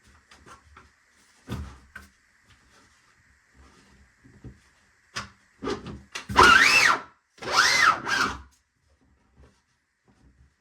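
A few light clicks and knocks as toolbox parts are handled, then two loud squeaky scrapes, each about a second long with the squeak rising and falling in pitch, as the parts rub against each other while the lock is worked.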